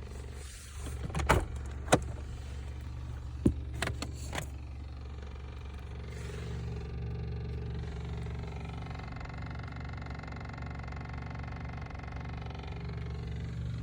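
Volkswagen Golf 6 idling with a steady low hum, with a few sharp clicks and knocks in the first four seconds. About six seconds in, a droning tone with several overtones joins and holds. This is the noise from under the passenger seat that the owner hears only with the car in Park in cold weather.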